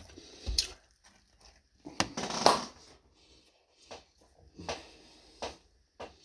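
Pizza being eaten close to the microphone: bites into crisp crust and chewing, heard as a string of short crunches, the loudest about two seconds in.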